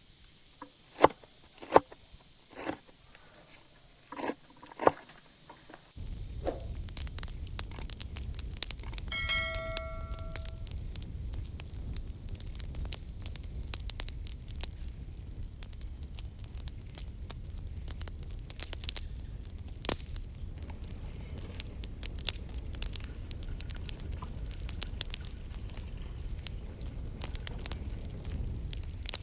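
Knife chopping food on a board, about six sharp strokes, then from about six seconds in a steady low rumble with crackling from a wood cooking fire. A brief ringing tone sounds near ten seconds.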